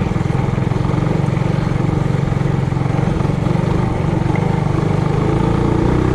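Trailmaster Hurricane 200X mini bike's single-cylinder four-stroke engine running steadily under way on the trail, its revs rising slightly near the end.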